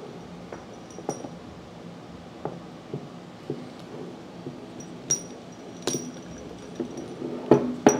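Light metallic clinks and knocks as a brass pump manifold is handled and pushed onto the plungers of a CAT pressure washer pump. The clicks come about once a second, and the loudest pair falls near the end.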